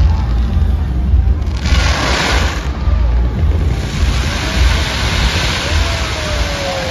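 Fireworks display: shells going off in a continuous run of booms, with a hissing, crackling burst about one and a half seconds in that lasts about a second.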